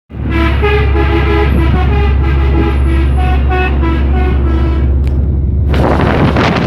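Three-trumpet telolet air horn on a Hino truck playing a quick tune of changing notes over a steady low engine drone. The horn stops about a second before the end, giving way to a rush of wind and road noise.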